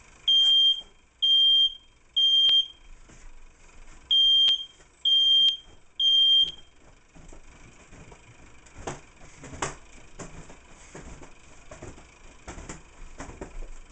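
Smoke alarm sounding its three-beep pattern: two rounds of three high, piercing beeps, then it stops. It is set off by flour that has started to burn while browning in the oven. A few scattered knocks and clatters follow.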